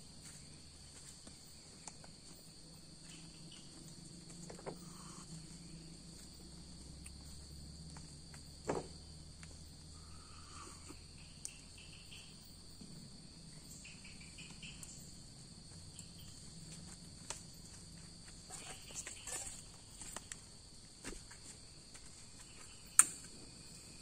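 Faint, steady high-pitched chorus of forest insects, with a few small clicks and knocks of camp gear being handled, the sharpest about a second before the end.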